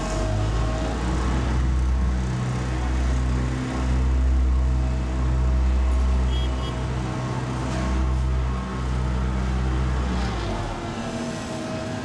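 Asphalt paver's diesel engine running steadily with a low drone, easing off about ten and a half seconds in.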